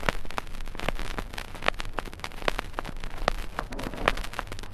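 Crackle and irregular clicks of surface noise from a 12-inch acetate 78 rpm disc, over a steady low hum.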